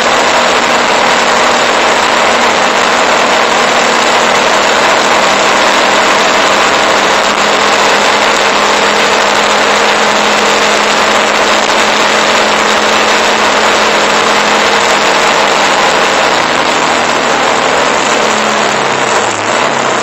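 Motorcycle engine running at a steady cruising speed, mixed with loud wind rushing over the camera's microphone. Near the end the engine note drops and wavers as the bike slows.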